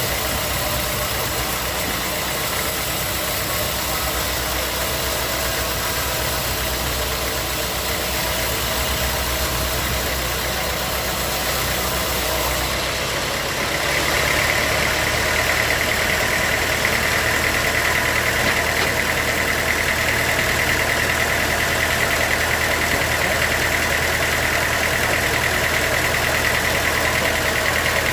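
Sawmill machinery running steadily. About halfway through it gets louder and a steady high whine joins in, as a saw takes load.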